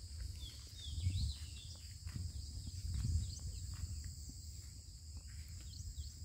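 Lakeside ambience: a steady high insect buzz with many short bird chirps over it, and a low rumble that swells about a second in and again about three seconds in.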